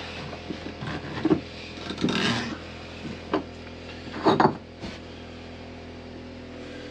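Pipe wrench and loosened skin fitting being worked and handled: a few metal clunks and scrapes, a longer scrape about two seconds in and the loudest knock at about four and a half seconds, over a steady low hum.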